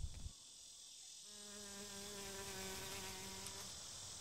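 A faint, steady insect-like buzz, level in pitch, that starts about a second in and stops about a second before the end.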